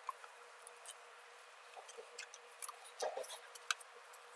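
Faint, scattered light clicks and ticks of a hex key working small mounting bolts as they are started by hand, with a short cluster of clicks about three seconds in.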